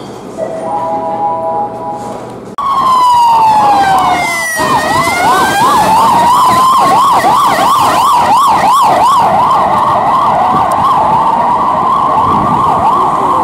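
Emergency vehicle siren that starts abruptly about two and a half seconds in. It sweeps slowly down and up in pitch, then switches to a fast warble of a few cycles a second, and goes back and forth between the two. Before it, a short chord of three steady tones sounds for about a second.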